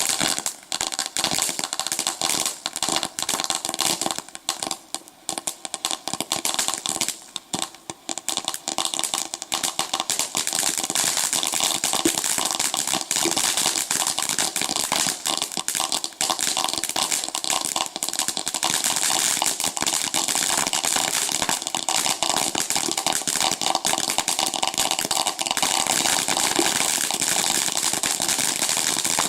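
Dakota Snowstorm firework burning with a dense, continuous crackling hiss, which thins briefly a few seconds in and then runs on steadily.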